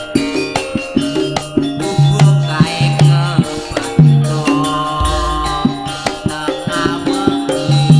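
Javanese gamelan music: ringing pitched metal tones over a quick, steady hand-drum beat, with a deep low note about five seconds in.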